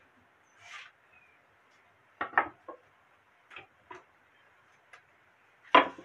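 Wooden boards being set down and handled on a wooden workbench: scattered knocks and taps, with a double knock about two seconds in and the loudest knock near the end.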